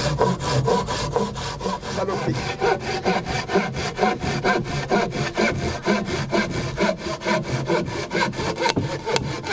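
Hand saw cutting through a wooden plank in quick, even back-and-forth strokes.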